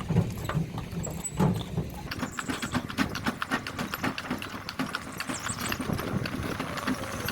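Horse's hooves clip-clopping in a steady run of hoofbeats, thickening after about two seconds.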